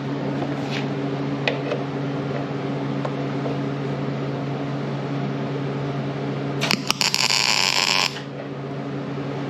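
A wire-feed welder's arc crackles in one short tack lasting about a second and a half, near the end. Under it runs a steady machine hum.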